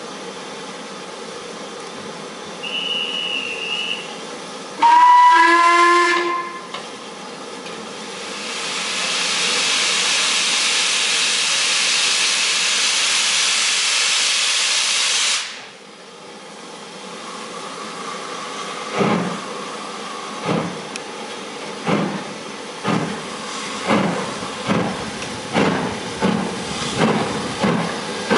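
A short shrill whistle, then the LMS 8F 2-8-0 steam locomotive gives a brief blast on its whistle. Steam hisses loudly for about seven seconds from its open cylinder drain cocks, then stops. The engine then starts away with a train: its exhaust chuffs are slow at first and steadily quicken.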